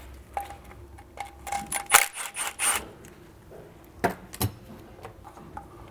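Cordless power tool running in short bursts to spin off the 10 mm nuts holding the oil level sensor to the oil pan, with metallic rattling. Two sharp clicks come about four seconds in.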